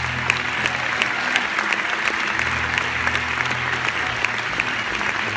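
Theatre audience applauding steadily, with low music playing underneath.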